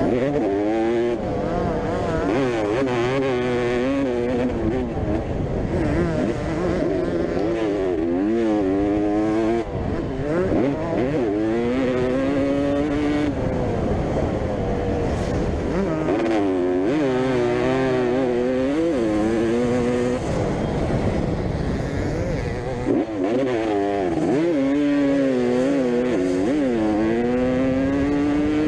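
Two-stroke motocross bikes racing around a dirt track, engines revving hard and shifting, the pitch climbing and dropping again and again as riders open and close the throttle.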